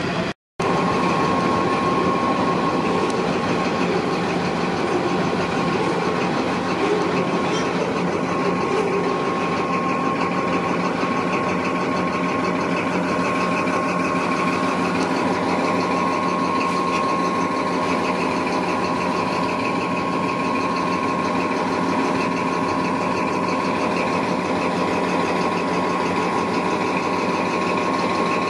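NSW TrainLink XPT diesel power car standing at the platform with its engine running steadily, a constant machine drone with a high steady whine over it.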